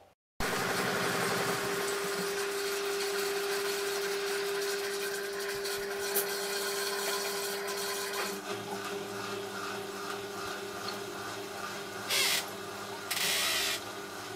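Hotpoint RD 966J washing machine running a fast wash cycle: a steady motor whine with drum and water noise, the pitch changing about halfway through, and two short hisses near the end.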